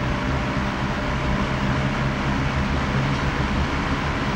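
Electric box fan running steadily at its medium speed setting: a rushing of moving air over a low motor hum.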